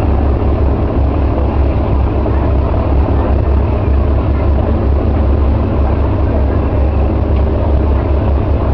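Ferry's engines running with a steady, heavy low rumble and no change in level.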